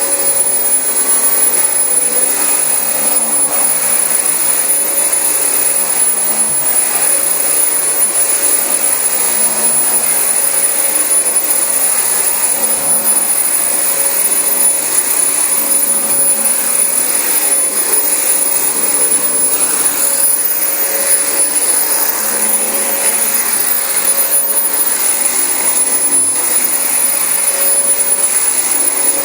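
Dyson DC25 bagless upright vacuum cleaner running steadily while vacuuming carpet: an even motor and airflow whine that holds the same level throughout.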